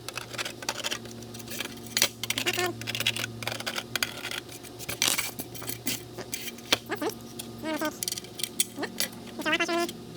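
Small metal hardware and tools clinking and tapping against a metal plate, in many short irregular clicks and jingles, while studs are being fitted, over a steady low hum.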